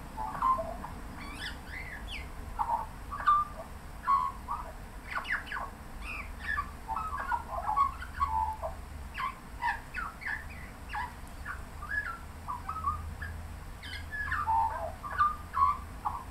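Australian magpie singing a long, varied warbling song: a continuous run of quick notes, chortles and short pitch glides with no real pause.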